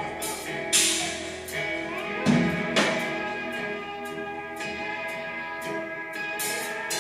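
Live rock band playing an instrumental passage: strummed acoustic guitar, electric guitars and drums, with several cymbal crashes, the loudest about a second in and two to three seconds in.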